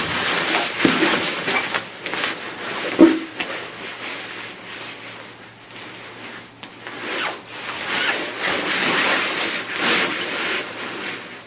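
Outdoorsman Lab ultralight inflatable nylon air sleeping pad rustling, crinkling and squeaking as it is pressed and rubbed by hand and then lain on and shifted about on carpet. There is a sharper, louder squeak about three seconds in. The noise eases off in the middle and picks up again as the body settles.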